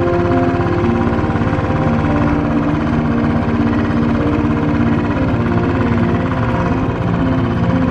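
Motorcycle engine running steadily while riding, with held whining tones over it that change pitch every second or so.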